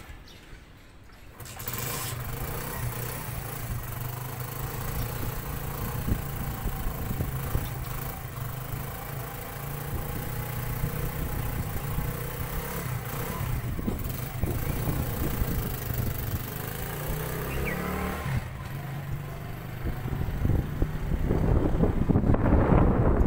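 A motor vehicle engine starts about a second and a half in and runs steadily with a low hum, growing louder near the end.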